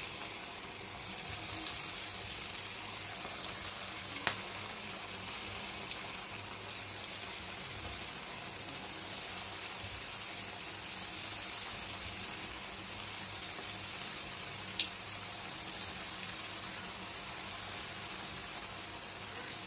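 Cabbage Manchurian balls deep-frying in hot oil in a wok: a steady sizzle, with a few sharp clicks.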